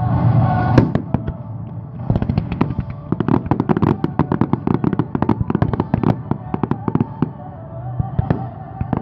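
Aerial fireworks display: a single loud bang about a second in, then a rapid string of bangs and crackling bursts for about five seconds, easing off near the end. Music plays in the background.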